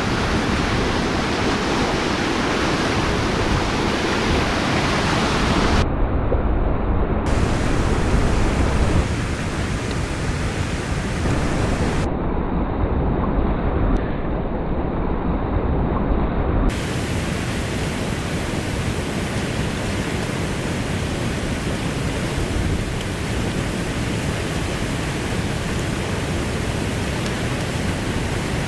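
Steady rushing noise of a river flowing, even and unbroken, with a deep rumble underneath.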